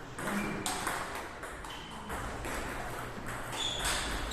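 Table tennis balls clicking off bats and tables during play: a string of sharp, irregularly spaced ticks, several a second.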